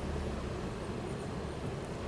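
Diesel locomotive approaching with its engine running, a steady low drone.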